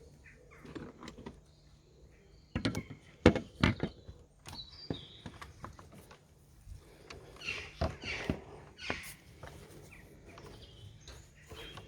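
Hands working in an engine bay while fitting a new plastic coolant reservoir and its hoses: scattered knocks and clicks of plastic parts, with a few sharp knocks about three seconds in and scraping and rustling later on.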